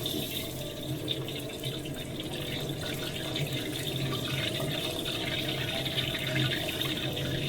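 Shrimp wontons sizzling steadily in hot oil during their second deep-fry.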